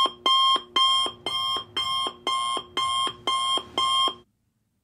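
Electronic alarm beeping in a steady rhythm, about two beeps a second, then cutting off about four seconds in.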